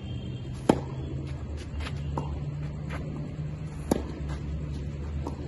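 Tennis racket striking the ball twice during a rally, two sharp pops about three seconds apart: one just under a second in, one about four seconds in. Fainter ticks of the ball bouncing and being returned fall in between, over a steady low hum.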